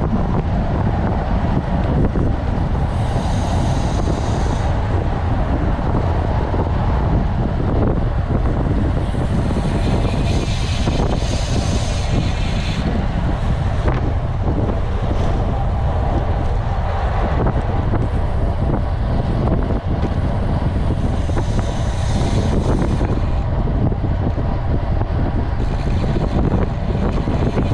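Wind rushing over a bike-mounted camera's microphone at racing speed, about 40 km/h, mixed with tyre noise on asphalt: a steady low rumble with a few brief higher hissing passages.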